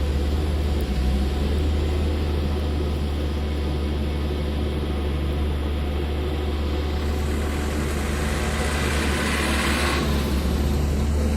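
Excavator's diesel engine running steadily with a deep, constant hum while it dredges mud. A hiss swells over a few seconds and cuts off about ten seconds in.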